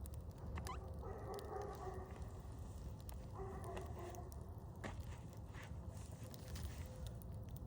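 Campfire crackling, with scattered sharp pops over a low steady rumble. Two short pitched sounds come through about a second in and again about three and a half seconds in.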